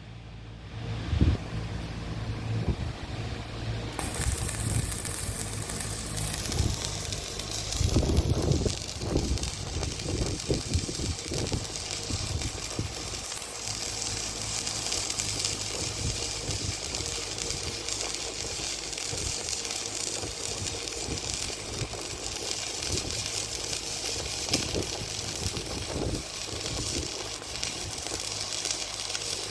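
Electric welding arc giving a steady crackling hiss that starts about four seconds in, with a few knocks and thumps of metalwork, after an opening of low hum and knocks.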